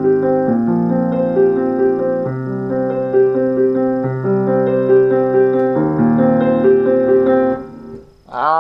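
Piano played in a steady repeating figure over a bass line that changes every second or two; the playing stops near the end and the last notes fade away.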